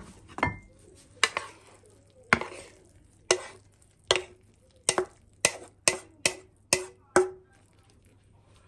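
About a dozen sharp knocks and clacks, one or two a second, some with a short ring, as a frying pan and a wooden spatula knock against each other and the plate while stir-fried noodles are scraped out onto a ceramic plate. The knocking stops about seven seconds in.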